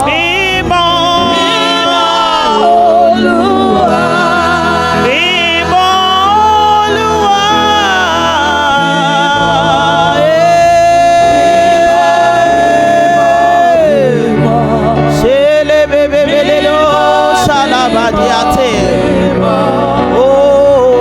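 Gospel worship music: a voice sings with heavy vibrato over instrumental backing, holding one long note in the middle.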